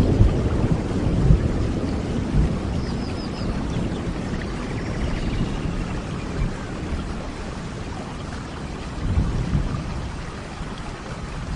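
Steady rain with rolling thunder: a low rumble fades away over the first few seconds, and another swells and dies around nine seconds in.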